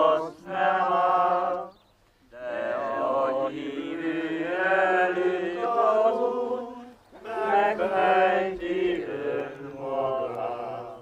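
A group of people singing a slow Hungarian song unaccompanied, in long held notes. There is a short pause for breath about two seconds in, and another just before seven seconds.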